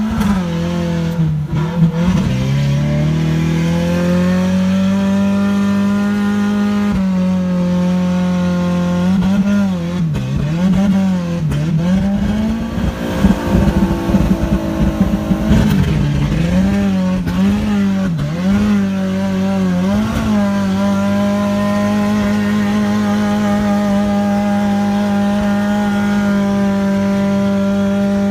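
4x4 pickup truck's engine revving hard under load as it climbs a steep mud trench: held at high revs for long stretches, with repeated drops and surges in pitch. About halfway through there is a few seconds of rough, uneven noise along with the engine.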